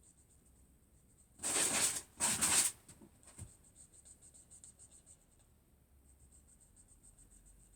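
Two brisk, scratchy strokes of coloring on paper, each about half a second long, followed by a light tap.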